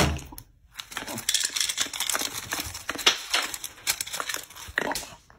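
A sharp thump at the start, then paper rustling and crinkling with many quick taps and clicks as banknotes are pushed out and fall.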